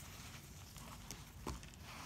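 Layered baking soda chunks crunching and crumbling in the hands: soft powdery crunching with a few sharp snaps, the loudest about one and a half seconds in.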